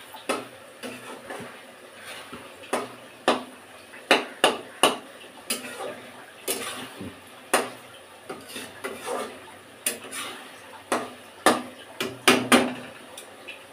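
Metal spoon stirring fish curry in a metal kadhai, scraping and knocking against the pan in irregular clinks, with a quick run of sharp knocks near the end.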